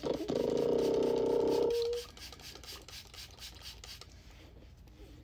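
A hairbrush raking through long curly wig hair: a loud, even rasp lasting about two seconds, then fainter scratching.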